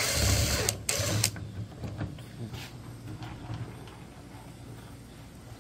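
Cordless impact driver running in two short bursts, the first under a second and the second about half a second, backing out a screw from a washing machine's plastic control panel. After that come a few light plastic clicks and knocks.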